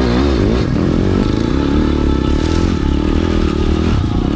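Pit bike engine running while riding along a forest trail, its pitch wavering a little with the throttle.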